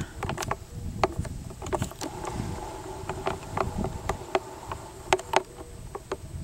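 A flying insect buzzing steadily, with irregular sharp clicks and crackles over it.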